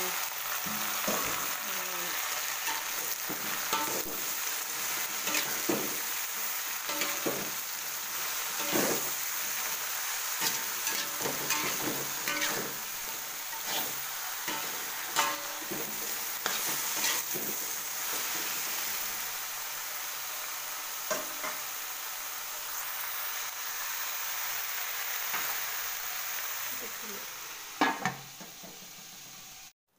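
Chunks of angled luffa sizzling in an aluminium wok, stirred and scraped by a metal spatula, with a steady frying hiss and frequent short scrapes against the pan. Near the end comes a few louder knocks as a lid is put on the wok, then the sound cuts off suddenly.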